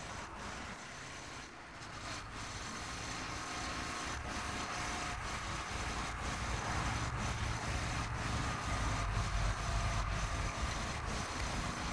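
Motorcycle riding along a road: steady engine and wind noise that slowly grows louder.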